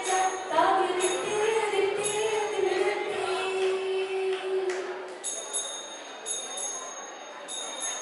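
Song with a woman's voice holding long, bending notes over jingling percussion on a steady beat. The music stops about five seconds in, leaving a quieter hall with a faint steady high tone.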